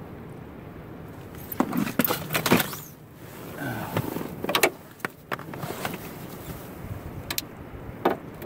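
Fishing gear being handled: several short clicks and brief whirring rattles, over a steady background rush.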